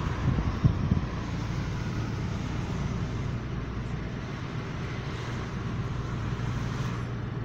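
Car driving along a road, heard from inside the cabin: a steady low engine hum with tyre and road noise. There are a few thumps about a second in.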